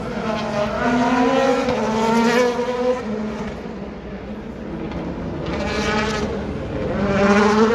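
World Rally Car engine revving hard as the car accelerates. Its pitch climbs for a couple of seconds and drops off about three seconds in, then rises again twice, loudest near the end.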